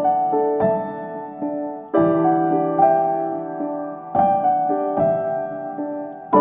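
Background piano music: slow, gentle chords, each struck and left to fade, changing about every two seconds.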